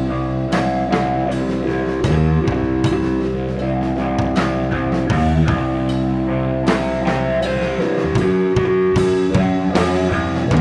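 A rock band playing live: electric guitar and bass guitar over a drum kit with steady cymbal and drum strikes. The low sustained bass notes drop out about eight seconds in as the riff changes.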